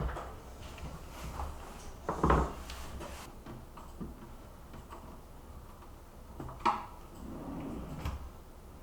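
Kitchen cabinet drawers and their hardware being handled: a series of irregular wooden knocks and clunks, the loudest a little over two seconds in and another sharp one near seven seconds.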